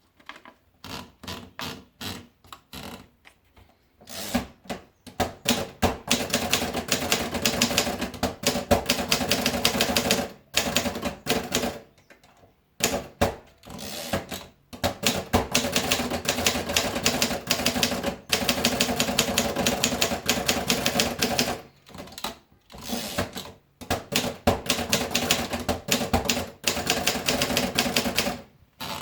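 Continental 350 manual typewriter being typed on. A few separate keystrokes come first, then fast runs of key strikes broken by short pauses.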